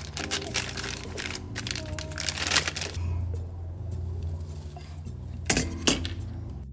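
Background music under handling noise: clicks and rattles of hand tools and wire connectors being worked on, busiest in the first three seconds, with two sharp, loud clicks about five and a half seconds in.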